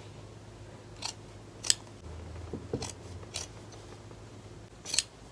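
Scissors snipping through a knit cut-and-sew top, cutting the sleeve off along its seam: about five separate snips, unevenly spaced.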